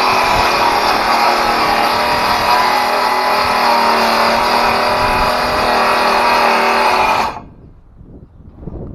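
Ridgid circular saw running at full speed and cutting through a wood board: a loud, steady motor whine over the noise of the blade in the wood, cut off suddenly about seven seconds in.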